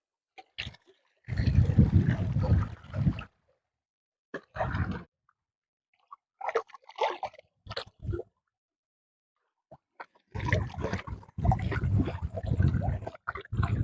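Water splashing and gurgling in irregular bursts, with dead-silent gaps between them and a longer, denser stretch near the end.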